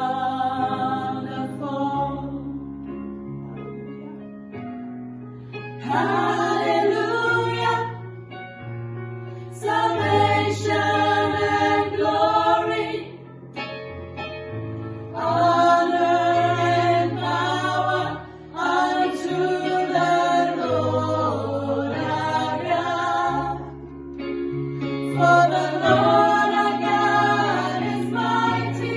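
A gospel choir sings in phrases of a few seconds each, with short breaks between them. Held low accompaniment notes carry on through the breaks.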